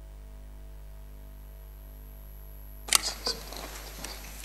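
Steady electrical hum from the courtroom sound system for about three seconds, then a sharp click followed by scattered light clicks and rustles.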